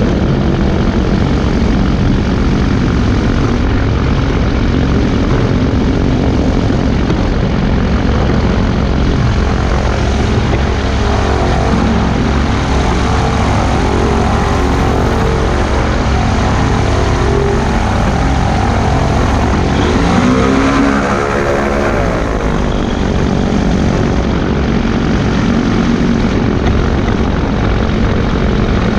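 Weight-shift trike's propeller engine running steadily, with wind rush, as the trike rolls along the runway. A brief pitched sound that bends up and down comes in about twenty seconds in.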